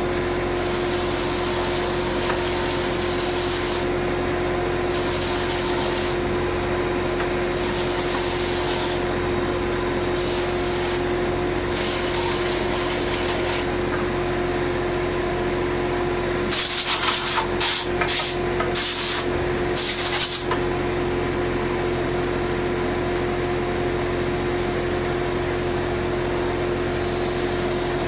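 Electric sander motor running steadily with a constant hum, while a rasping hiss comes and goes every second or two as the wood of a bandsaw box is worked against it. About two-thirds of the way through there is a run of short, loud hissing bursts.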